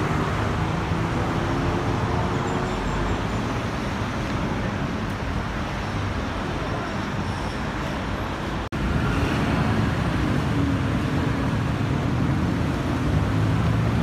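Steady street traffic noise with vehicle engines running, broken by a sudden brief dropout about nine seconds in.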